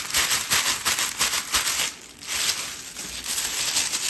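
Clear plastic crinkle sheet crumpled and rubbed between hands: a dense run of crackling crinkles that eases off briefly about two seconds in, then picks up again.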